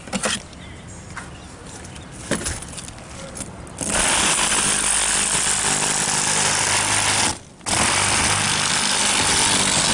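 Reciprocating saw (Sawzall) cutting through a car's laminated windshield glass. It starts about four seconds in, stops briefly, then runs again. Before it starts there are a few short knocks as the blade is set into the glass.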